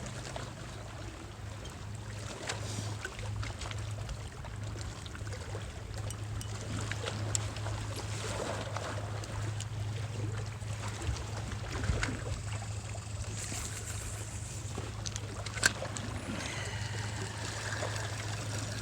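Waterside ambience: water lapping under a steady low hum, with scattered small clicks and one sharp click about three quarters of the way through.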